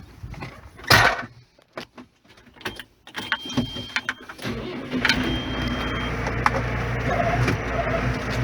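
A sharp knock about a second in, then a tractor engine running steadily from about halfway on.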